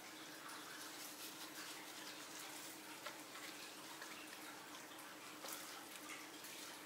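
Faint handling sounds of a spice shaker being shaken over raw chicken breasts and gloved hands rubbing the ground ginger into the wet meat: soft taps and moist rubbing over a steady low hum.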